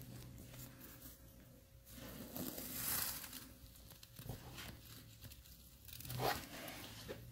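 Wood-shaving and paper-towel bedding rustling and crinkling in faint bursts, loudest about three seconds in and again just after six seconds.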